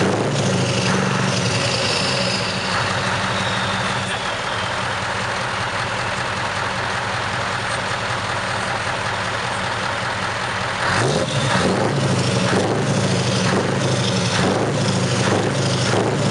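Scania R500's V8 diesel engine running steadily at a standstill, heard through its short side-exit exhaust. Its note changes abruptly twice, about two and a half seconds in and again about eleven seconds in.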